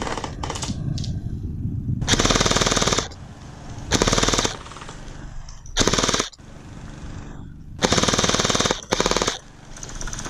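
Electric gel blaster firing in about five short full-auto bursts, each a quarter to one second long, with pauses between them. The gearbox cycles fast, giving a rapid stream of shots.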